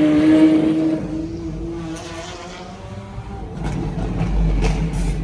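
Pagani Zonda R's 6.0-litre V12 revving, its pitch climbing at the start, then holding and fading away over the next two seconds. From about three and a half seconds in a low rumble builds, with a few short sharp cracks near the end.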